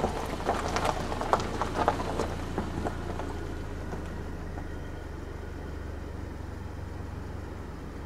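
Footsteps crunching irregularly on rough ground for the first three seconds or so, then only a steady low rumble.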